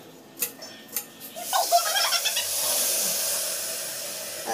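Rice tipped into a hot aluminium pressure cooker, sizzling as it hits the hot fat and spices for pulao: a loud hiss that starts about a second and a half in and slowly dies down. Two light knocks come before it.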